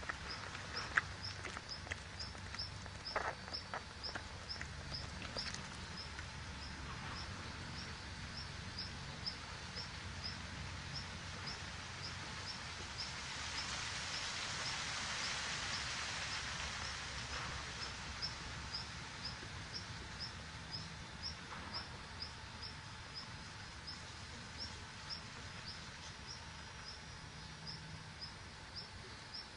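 A high, short chirp repeated evenly, about two or three times a second, from a small animal such as an insect or bird, over outdoor background noise. A swell of hiss rises and fades around the middle.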